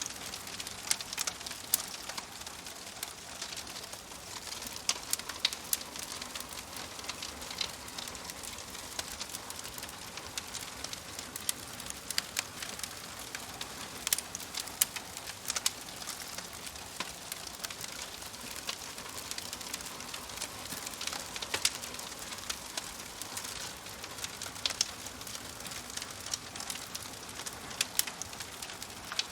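Wood fire crackling in a fireplace: burning logs give irregular sharp pops and snaps over a steady hiss.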